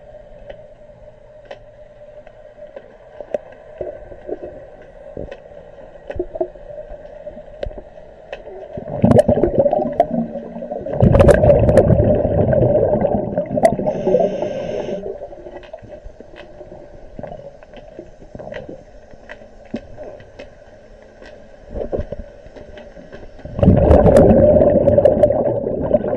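Muffled underwater sound from a submerged camera: a steady hum with scattered clicks. Twice it is broken by loud rumbling, scraping water noise, from about nine seconds in for some six seconds and again near the end.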